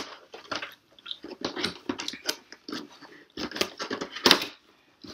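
Cardboard box being pried open and handled: irregular scraping, crackling and tapping of the cardboard flaps, loudest about four seconds in.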